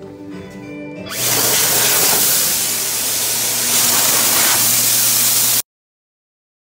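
Dyson Airblade hand dryer starting about a second in and blowing a loud, steady rush of air with a low motor hum underneath. The sound cuts off suddenly near the end.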